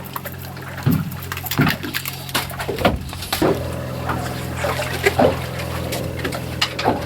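Water splashing and slapping against a fishing boat, in irregular bursts, over the steady hum of the boat's motor.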